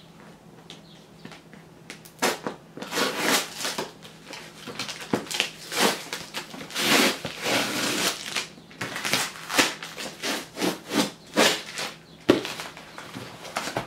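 Packing tape being ripped by hand off a cardboard box: a long series of rasping tears starting about two seconds in, with a sharp knock near the end.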